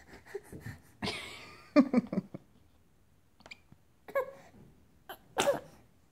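A baby's short breathy grunts and squeaky vocal noises, in about four separate bursts with pauses between.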